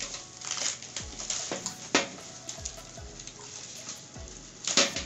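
Plastic bag and bubble wrap crinkling and rustling as a wrapped oven tray is pulled open by hand, with sharper crackles about two seconds in and again near the end.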